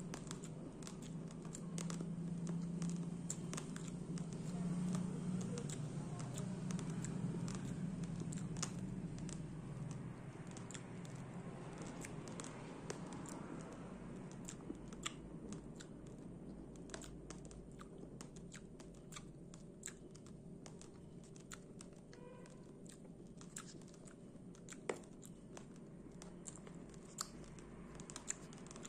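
Raw rice being chewed: small sharp crunches and clicks of hard grains, irregular and scattered, with a low hum for roughly the first ten seconds.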